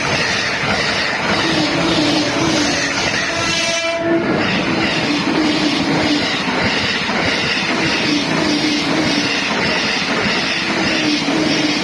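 Joban Line train passing a level crossing at speed, its wheels clattering and rushing over the rails, with the crossing's warning bells ringing on and off. A short horn sounds and breaks off about four seconds in.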